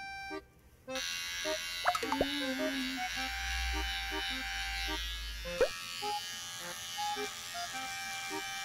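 Handheld electric pet hair trimmer buzzing steadily as it shaves the fur on a dog's belly and genital area, starting about a second in. Light background music plays along.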